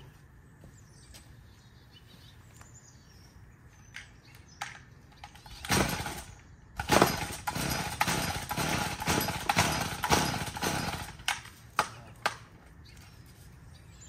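Recoil pull-starter of a gas string trimmer being yanked, first once and then in a quick run of rasping pulls about twice a second, with the engine not catching: the owner puts it down to not having primed it first.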